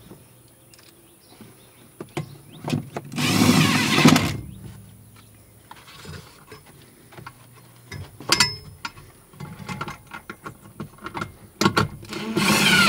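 Cordless drill-driver spinning in two short bursts, about three seconds in and near the end, driving the screws that hold the amplifier down. Light clicks and rustling of handling come in between.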